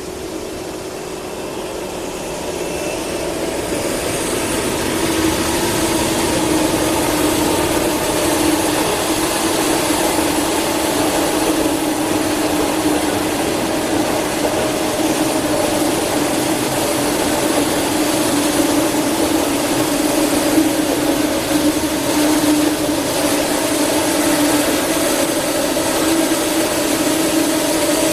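HXD1D electric locomotive and 25T passenger coaches running on the line. The rail noise grows louder over the first few seconds, then holds steady with a constant hum.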